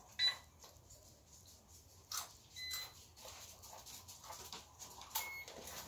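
Three short, high electronic beeps from a handheld voltage tester as it is switched on and held to the fixture wiring to check that the circuit is dead, with a couple of soft handling clicks.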